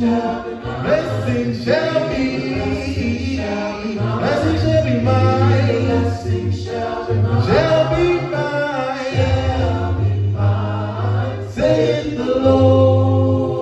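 Male vocal group of five singing a gospel song a cappella into microphones, several voices in harmony over a low sustained bass part.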